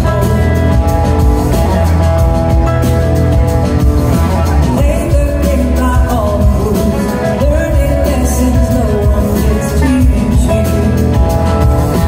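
Live blues-rock band playing loudly: electric guitars, drums and bass, with singing over them, heard from the audience in a concert hall.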